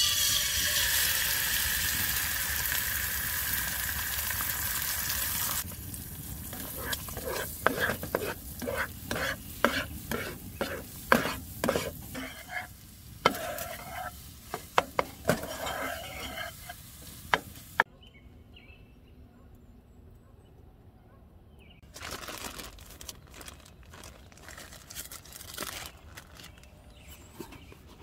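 Bacon sizzling steadily in a frying pan, stopping abruptly about five seconds in. Then a fork scrapes and clicks against the pan in quick strokes as eggs are stirred, and near the end a plastic zip bag rustles softly.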